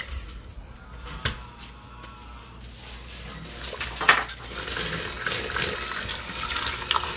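Electric hand mixer shredding cooked chicken in a stainless steel bowl, on low speed. It goes quiet apart from a click about a second in, then a sharp knock about four seconds in, after which the mixer runs again.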